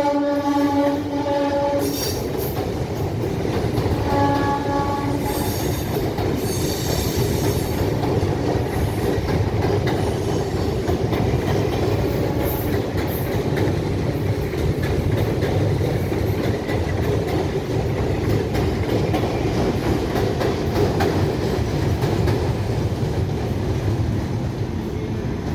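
Electric multiple unit suburban train sounding its horn: a held blast ends about two seconds in and a shorter second blast follows about four seconds in. The train then runs on with a steady rumble and clatter of wheels on rails, with high-pitched wheel squeal around six to eight seconds in.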